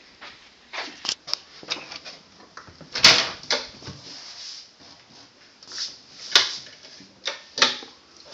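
A string of knocks and clicks, the loudest knock about three seconds in and sharp clicks a little after six seconds and near seven and a half seconds.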